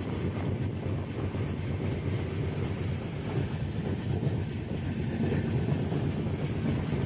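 Passenger train rolling slowly into a station, heard from the carriage: a steady rumble of wheels on the track, with wind buffeting the microphone.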